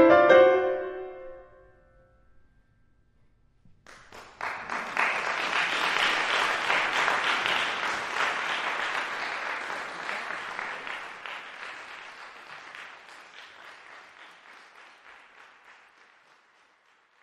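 The last piano chord dies away, then after a short silence an audience applauds, swelling quickly and slowly fading out.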